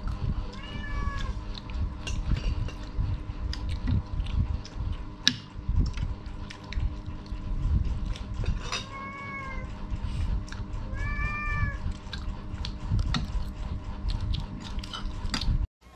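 A domestic cat meowing three times, each call rising then falling in pitch, among light clinks of spoons on dishes.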